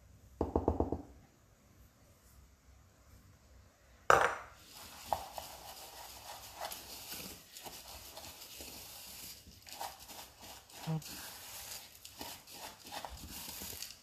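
A utensil stirring and scraping biscuit crumbs and melted butter together in a chopper bowl, with small clicks against the bowl's sides: mixing a cheesecake base. A short rattle comes about half a second in, and a sharp knock, the loudest sound, about four seconds in as the stirring starts.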